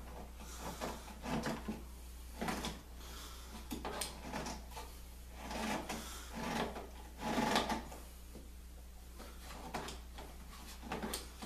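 Pieces of wood being handled during a glue-up, with about half a dozen short scrapes and knocks of wood rubbing and sliding against wood.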